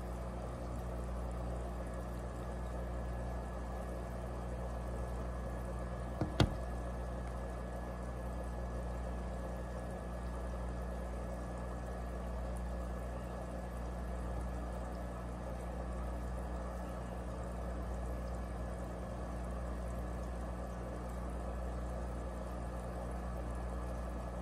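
Steady low hum with an even hiss over it, and a single sharp click about six seconds in.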